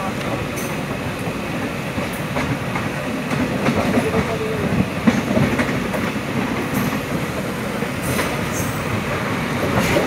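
A passenger train running along the track, heard from inside the coach: a steady rumble of wheels on rails with scattered sharp clicks and knocks.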